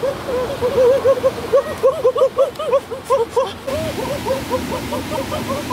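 Running stream water hissing steadily under a dense chorus of short chirping calls, each rising and falling, several a second and overlapping.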